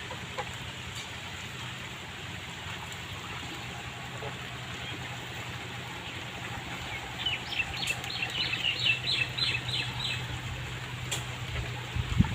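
A bird giving a rapid series of about ten short, high, downward-sweeping calls, three or four a second, over a steady noisy background with a low hum.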